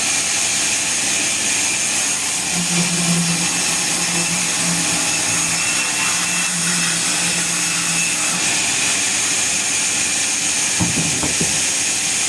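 Sawmill machinery running with a steady hiss. A low hum comes in at about two and a half seconds and drops away at about eight seconds, and a few light knocks follow near the end.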